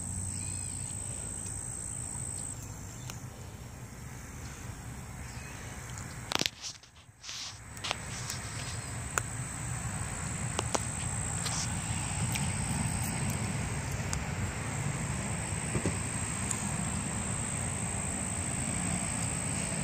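Outdoor field ambience: a steady high insect drone over a low rumble, with scattered small handling clicks. About six and a half seconds in there is a sharp knock, and the sound drops out for about a second.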